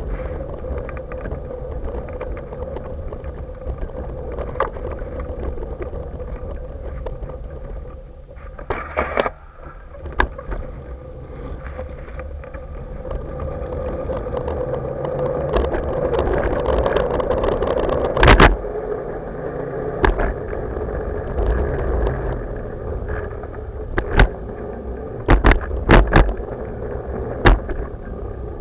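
A hoverboard rolling over a dirt path and then paving: a steady rumble of the wheels with a constant hum, broken by sharp knocks as it goes over bumps and joints, several close together near the end.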